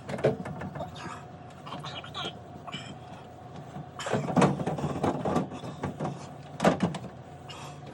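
Rag scrubbing and wiping a corner of a refrigerator's inside door, in uneven strokes with a heavier stretch about halfway through and a sharp knock near the end, over a steady low hum.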